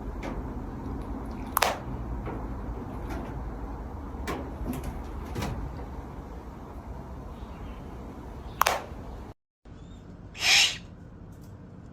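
An owl calling in a few short, sharp sounds over a steady low background hum, then a louder, noisier call lasting about half a second near the end.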